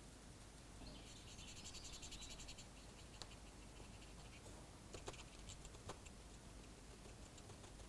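Faint scratchy rubbing of a hand-held weathering tool against the body of a Class 31 model locomotive, lasting about a second and a half, followed by a few light clicks.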